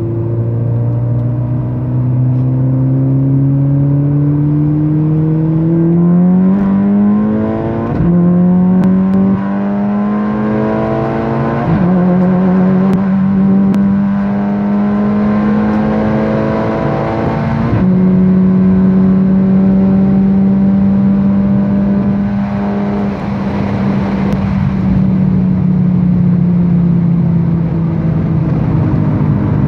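Tuned VW Golf 1.4 TSI turbocharged four-cylinder petrol engine, fitted with a hybrid turbo and 76 mm cat-back exhaust, heard from inside the cabin under full-throttle acceleration. The engine note climbs in pitch through the gears and drops at each quick DSG upshift, about 8, 12 and 18 seconds in. Near top speed it holds, then falls away in the last few seconds as the throttle is lifted.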